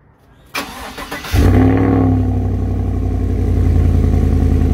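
2018 Chevrolet Silverado pickup starting, heard at its exhaust tip: the starter cranks for under a second, then the engine catches about a second and a half in with a short flare that falls back, and settles into a steady, loud idle.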